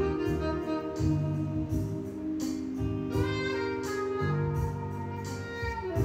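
Background music: held melodic notes changing every second or so over a low bass line.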